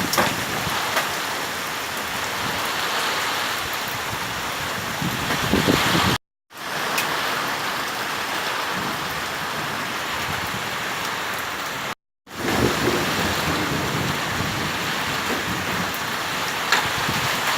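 Heavy rain and wind of a summer storm, a dense steady hiss that cuts out briefly twice where clips are joined.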